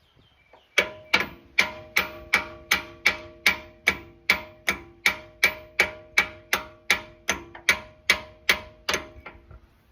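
Steady hammer blows on metal, about three a second, each leaving a short metallic ring: the old front diff pinion being driven out.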